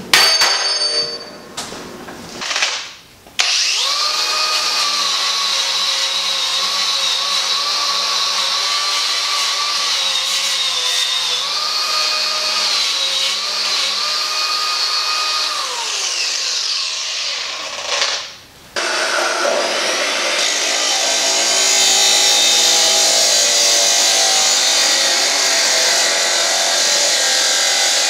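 A cordless angle grinder grinds paint off the steel edge of a skid-steer bucket. Its whine dips as it bears on the metal, then falls in pitch as it winds down. After a short pause, an abrasive chop saw starts cutting through a steel hook with a harsher, steady grinding that gets louder partway through.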